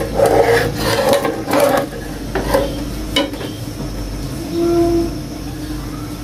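Spatula stirring and scraping through a soupy soy-and-onion sauce in a nonstick wok, with taps against the pan. The stirring stops about two seconds in, leaving a few light knocks.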